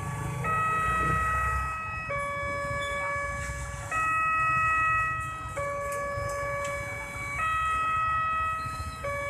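Railway level-crossing warning siren sounding a two-tone hi-lo wail. It switches between a higher and a lower tone about every one and a half to two seconds while the barriers are down, signalling that a train is approaching.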